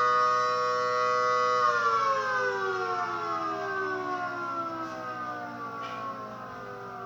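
Dual-tone tornado siren sounding a steady two-note chord, then winding down from about two seconds in, its pitch falling slowly as it fades.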